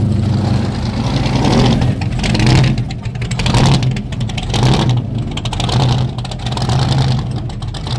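Muscle car engines running loud and deep as a Chevy Nova drag car rolls slowly past, the engine note swelling about once a second.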